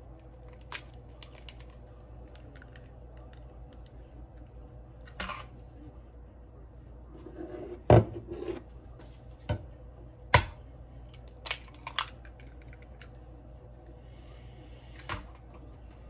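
Two eggs being cracked on the rim of a plastic microwave egg poacher and broken open. There are sharp knocks and shell crackles scattered through, the loudest about eight and ten seconds in.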